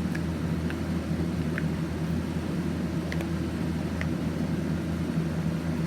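A steady low rumbling hum, with a few faint light clicks of small plastic fidget toys being handled.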